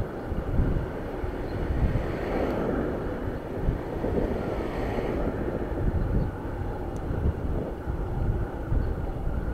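Wind buffeting the microphone of a cyclist riding along a road, a gusty low rumble, with a broader rushing noise that swells and fades a couple of seconds in.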